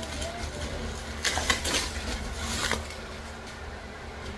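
Packaging being handled: a sharp click at the start, then a short run of clicks and rustles about a second in, over a steady low hum.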